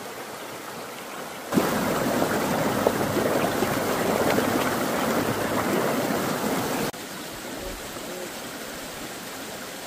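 Running stream water, a steady rushing noise. It jumps suddenly louder about a second and a half in, stays up for about five seconds and drops back just as suddenly.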